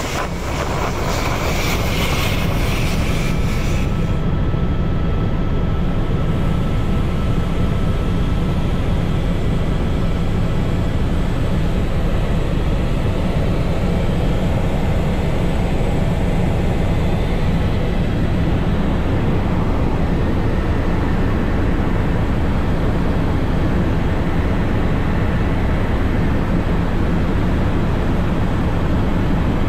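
Airbus H125 helicopter running on the pad for the first few seconds, with a pulsing rotor beat and a steady high whine. After an abrupt change about four seconds in, a steady low rumble of a helicopter in flight, heard from the cockpit, holds to the end.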